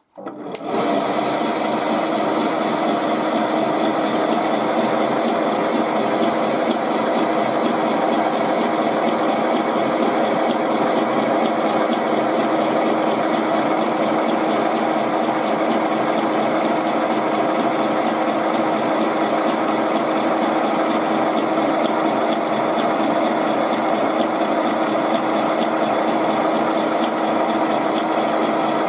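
Milling machine driven by a washing-machine motor, starting up in the first second and then running at a steady pitch, its spindle turning the cutter.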